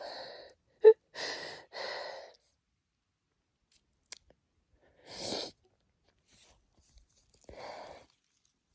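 A person breathing close to the microphone: several short audible breaths in and out with pauses between them.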